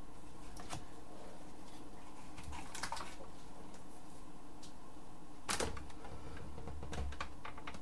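Handling noise of a camera being repositioned by hand on a desk: scattered clicks and short rustles, with one sharp knock about five and a half seconds in, over a steady low hum.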